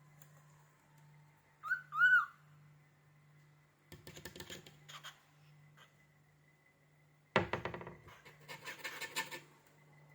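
Cockatiel giving two short rising-and-falling whistle notes, then a raspy, creaky chatter in two spells, the second louder and starting suddenly.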